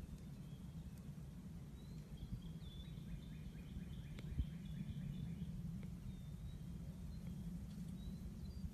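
Outdoor ambience: a steady low rumble, with faint high bird chirps through the middle.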